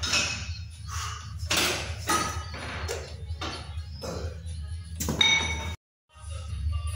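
Metal dumbbells clinking and pinging, a string of sharp strikes, some with a short ringing tone, over a steady low hum; the sound cuts out abruptly near the end.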